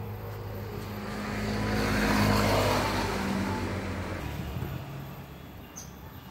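A motor vehicle driving past, its engine and tyre noise swelling to a peak about two seconds in and then fading away.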